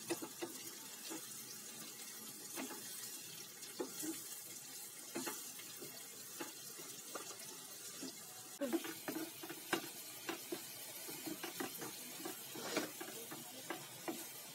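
Sliced onions frying in hot oil on a high flame: a steady sizzle with scattered pops and crackles. From about nine seconds in, a wooden spatula stirs them around the pan.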